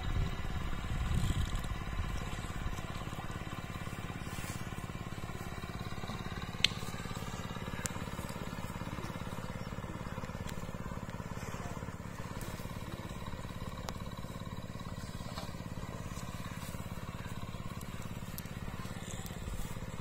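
Steady low drone of a distant engine, with a few faint knocks.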